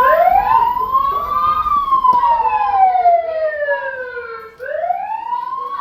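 Emergency vehicle siren wailing: a slow rise in pitch, a longer slow fall, then rising again near the end.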